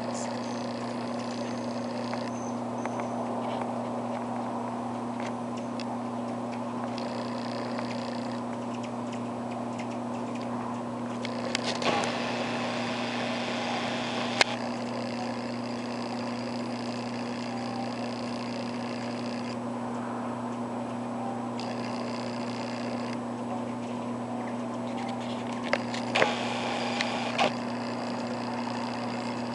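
Hummingbirds' wings buzzing in bursts of a few seconds as birds come and go at a nectar feeder, with a few sharp ticks. A steady low hum runs underneath.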